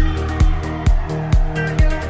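Electronic dance background music with a steady kick drum about twice a second, a held bass line and hi-hat ticks.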